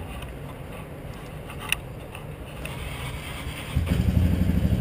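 Honda Rancher TRX420's 420cc liquid-cooled, fuel-injected engine cold-started: a single click a little under two seconds in, then near the end the engine catches at once and settles into a pulsing idle.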